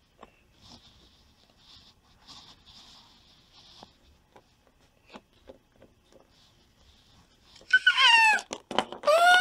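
Faint small taps, then near the end two loud, high-pitched squealing cries whose pitch arches up and falls away.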